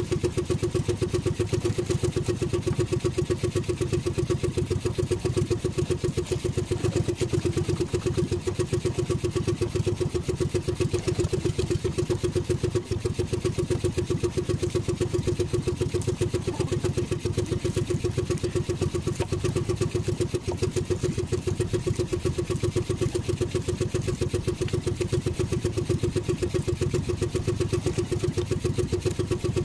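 Small outrigger fishing boat's engine running steadily with an even, unchanging note.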